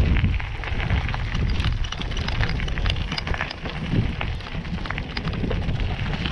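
Bicycle tyres crunching over a gravel trail, with many small crackling ticks from the stones, under a low rumble of wind buffeting the microphone.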